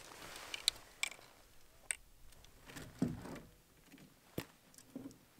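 Handling noise from a fly rod and reel being rigged: a few scattered sharp clicks, with soft rustling of line and clothing between them.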